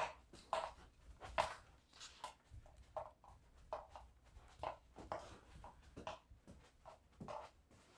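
Mini Australian shepherd panting after playing, short quick breaths at about two to three a second.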